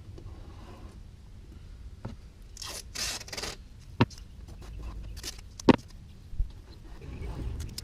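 Masking tape being pulled off the roll and stuck down, with a long ripping stretch about three seconds in and a few sharp snaps and knocks after it.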